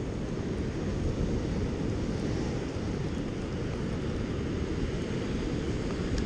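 Steady low rumble of wind buffeting the microphone over ocean surf.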